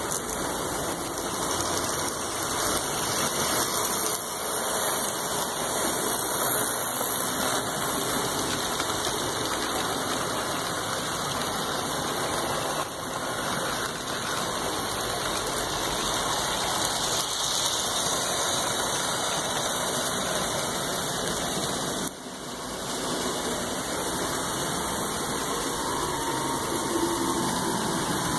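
HO scale model freight train running along the track close by, its motor and wheels making a steady mechanical noise that dips briefly about 22 seconds in.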